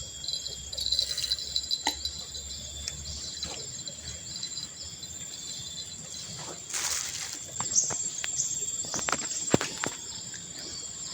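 Insects chirping and buzzing in steady high-pitched tones. About seven seconds in there is a brief rushing noise, and a few sharp clicks follow near the end.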